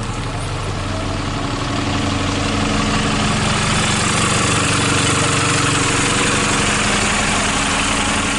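Alexander Dennis Enviro400 double-decker bus's diesel engine running steadily as the bus drives slowly past close by and pulls away, growing louder over the first few seconds.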